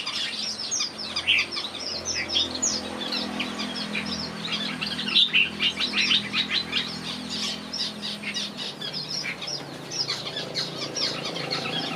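Many small birds chirping at once in an aviary, a busy run of short, high, overlapping chirps, over a faint low hum.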